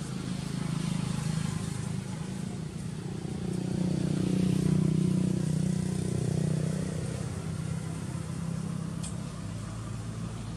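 A motor vehicle's engine humming, growing louder to a peak about halfway through and then easing off, like a vehicle passing by.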